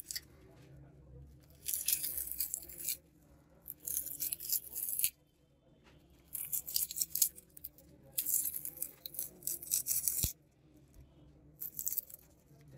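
Adhesive copper shielding foil being peeled off the back of a cracked Samsung Galaxy A30 display assembly. It crackles and tears in about five bursts, with short pauses between them.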